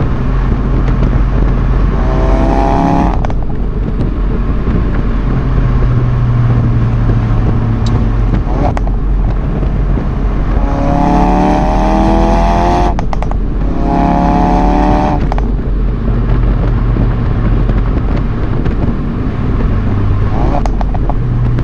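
Ford Focus RS Mk3's 2.3-litre turbocharged four-cylinder accelerating under load, its note rising in pitch in three pulls, about two, eleven and fourteen seconds in, each cut off sharply at a gear change. A steady low road rumble runs underneath, with a few short sharp cracks between pulls.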